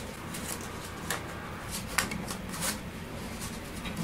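A paper banknote rustling and crinkling as it is woven between bass guitar strings, with a few sharp crackles and ticks of handling over a faint steady low hum.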